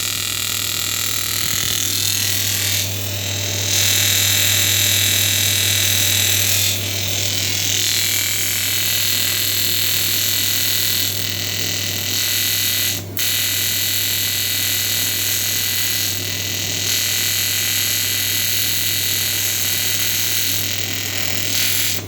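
TIG welding arc buzzing and hissing steadily, with a low hum underneath. It gets louder about 4 s in, cuts out briefly about halfway through, and stops suddenly near the end.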